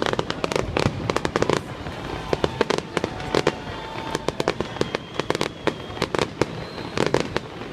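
Fireworks display: rapid, irregular bangs and crackles of bursting shells, several a second, with louder clusters of bursts at intervals.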